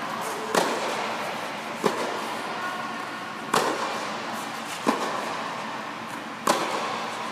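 Tennis balls being struck by rackets in a rally inside a tennis dome: five sharp pops about every one and a half seconds, alternately louder and softer, over a steady background hum.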